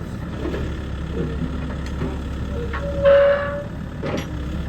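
Used XCMG excavator's diesel engine running steadily, with a short, steady horn toot about three seconds in.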